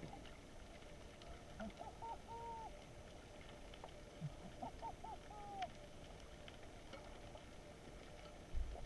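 Faint underwater ambience picked up by a camera mounted on a speargun: a low hiss with scattered small clicks. About two seconds in and again about five seconds in come short runs of brief whistle-like tones, three or four quick ones and then a longer one. A dull knock sounds near the end.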